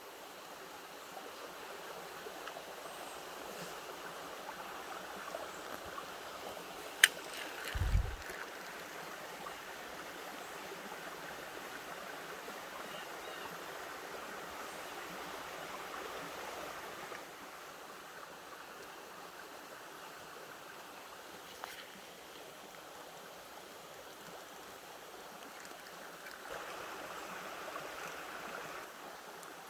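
Creek water running steadily, with a sharp click about seven seconds in, a brief low thump just after, and a smaller click later.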